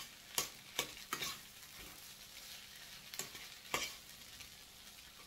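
Nasi goreng sizzling in a stainless steel pan while a metal spatula stirs it, the spatula scraping and knocking against the pan. Three sharp knocks come in the first second and a half, two more around three to four seconds in, over a steady sizzle.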